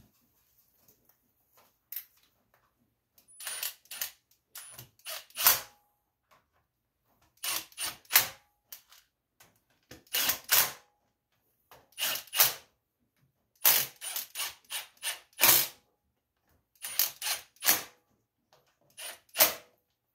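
Cordless power driver running in the bolts of a garden tractor's rear-end cover in short trigger pulls: bursts of a fraction of a second, two to four at a time, repeated every couple of seconds with quiet between.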